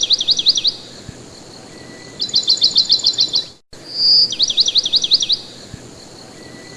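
Bird song: fast runs of sharp, high chirping notes separated by short pauses. The phrase cuts out briefly about a third of the way in and then plays again identically, opening with a short high whistle, as a looped recording.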